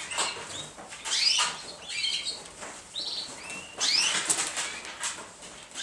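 Young pigeons peeping, several short high squeaks a second or so apart, with a flutter of wings.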